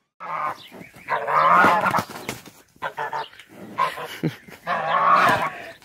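A goose and a dog squaring off, with loud honking and barking in about three bouts.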